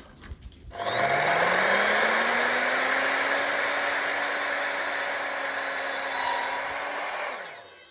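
Electric power saw starting up with a rising whine about a second in, running and cutting a stud at an angle for several seconds, then winding down with a falling whine near the end.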